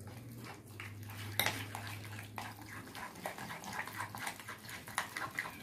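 Metal spoon stirring thick flour batter in a glass bowl, with irregular clinks and scrapes of the spoon against the glass.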